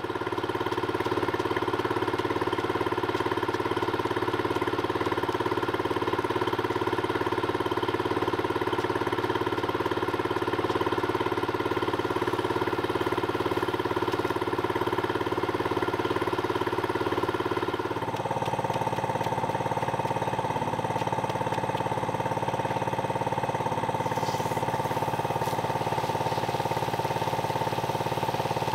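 A small engine running at a steady speed, without a pause. About two-thirds of the way through, its tone changes abruptly.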